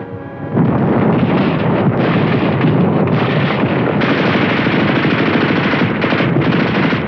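Heavy, continuous machine-gun and small-arms fire, shots too rapid and overlapping to count, setting in about half a second in and keeping up without a break.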